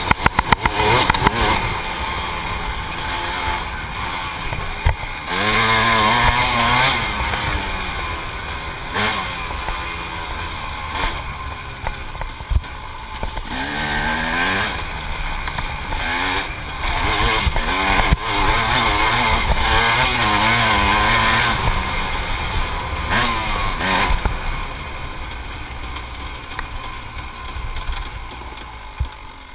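KTM dirt bike engine under way on a trail, revving up and easing off again and again, with sharp knocks near the start.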